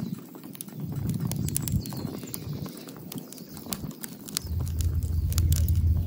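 Wood fire crackling in a small folding grill, with sharp irregular pops and snaps. A low rumble joins about four and a half seconds in.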